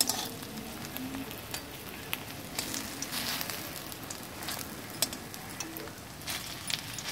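Taro-leaf rikwach rolls shallow-frying in oil in a steel kadai: a steady sizzle with scattered sharp pops and crackles.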